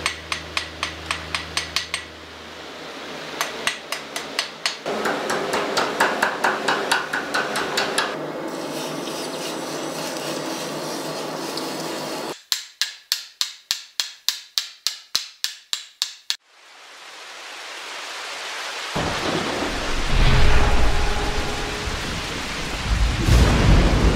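Blacksmith's hammer striking steel on an anvil in quick, even runs of blows, about four to five strikes a second, with a steady hiss between the runs. In the last few seconds a loud, low rumble takes over.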